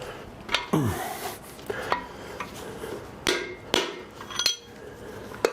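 Metal clinking and knocking, several separate sharp strikes, from tools and the pieces of a split piston being worked out of a seized cylinder of a 350 Chevy small-block.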